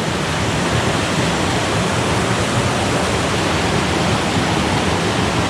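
Steady rushing of water over a small waterfall in a stream, a constant even roar.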